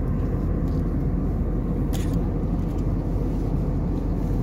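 Steady cabin noise of an Airbus A321neo in flight, the engines and airflow making an even, low-pitched rush, with one brief click about two seconds in.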